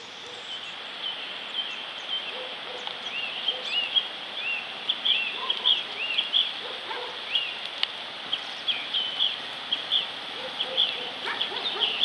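Birds chirping: many short, high chirps at an irregular pace, several a second.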